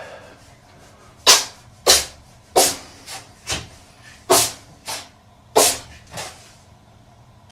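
A cat sneezing in a fit: about nine short, sharp sneezes in quick succession, roughly one every half second to second.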